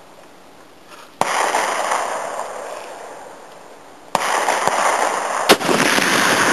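.50 caliber rifle shots: a sharp report about a second in whose boom dies away over about three seconds, then a second sharp report about four seconds in followed by a steady noisy wash, with a short crack about five and a half seconds in.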